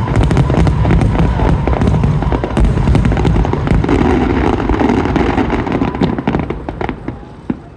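Aerial fireworks display: a dense, rapid barrage of shell bursts and crackling that thins out and fades over the last second or two.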